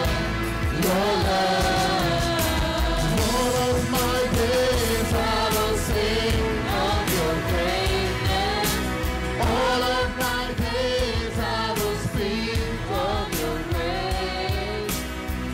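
Live praise-and-worship music: a group of singers at microphones sings a melody together over electric keyboards, with percussion hits keeping a beat.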